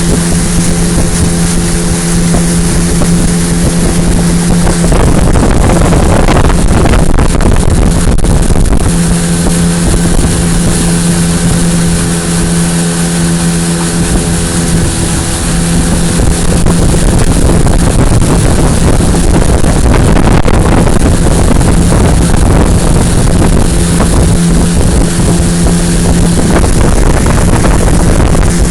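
Motorboat engine running at a steady pitch, with heavy wind rushing over the microphone. The engine's hum sinks under the wind twice for several seconds.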